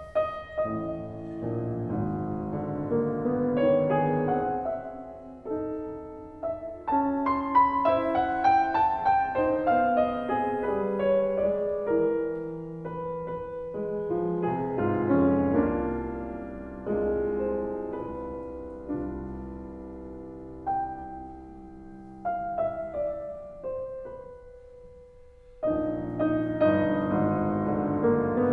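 Piano music. The playing thins to a single held note about three-quarters of the way through, then picks up again near the end.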